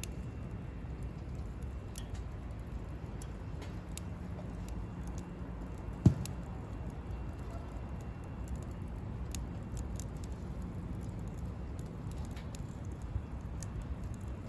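Wood campfire crackling, with scattered small pops and one sharp knock about six seconds in, over a low steady rumble.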